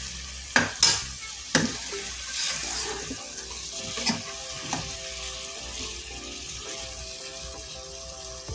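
Drumstick pieces and spice masala frying in hot oil in a pan, sizzling, with a spoon knocking against the pan several times in the first two seconds and a few lighter knocks later as they are stirred.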